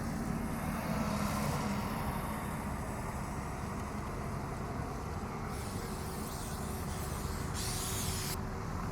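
Steady rumble of city traffic. Near the end, an aerosol spray-paint can hisses in short bursts that start and stop sharply.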